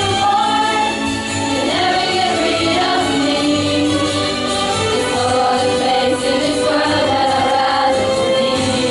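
Young singers performing a song together, with held and gliding sung notes over musical accompaniment with a steady beat.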